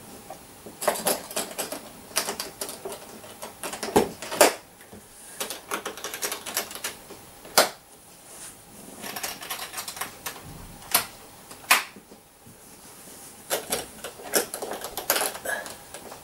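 A hard-shell banjo case being shut: the lid pressed down and its metal latches fastened, giving an irregular series of clicks and knocks with a few sharper snaps.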